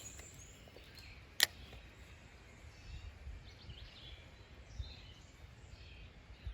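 Faint outdoor creek ambience with scattered faint bird chirps over a low rumble, and one sharp click about a second and a half in.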